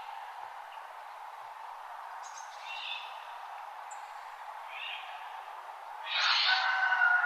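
Wild birds calling in a dawn chorus: a few short calls a couple of seconds apart, then a louder, longer call about six seconds in, over a steady background hiss.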